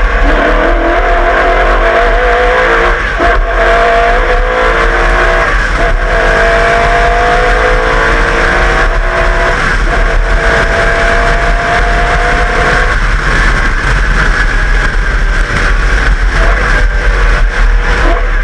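The V8 engine of a Walkinshaw VL Commodore Group A touring car at full throttle, its pitch climbing through a gear and dropping back at each of about three upshifts, then running more steadily near the end.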